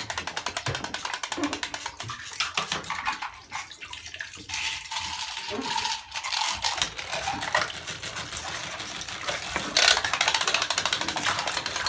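Wind-up clockwork motor of a swimming alligator bath toy whirring with rapid, fine ticking as it paddles in shallow water.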